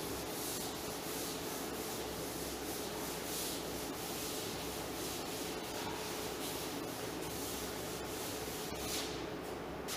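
Chalkboard being wiped with an eraser: a steady scrubbing hiss made of many quick back-and-forth strokes over the chalk surface.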